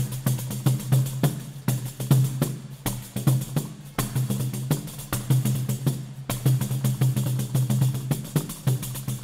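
Brazilian choro played by a percussion ensemble: a pandeiro keeps a fast, even stream of strokes over a steady low pitched line from marimba and guitar.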